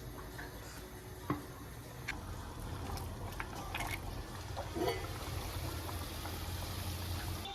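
A steady low rush of water or liquid, with a few small clicks and knocks scattered through it.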